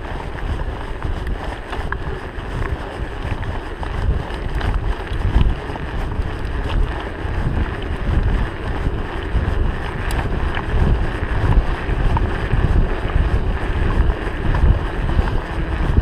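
Wind buffeting the action-camera microphone during a fast mountain-bike descent, a gusty low rumble over the hiss of the Trek 4500's tyres rolling on a gravel road, with scattered small rattles and clicks.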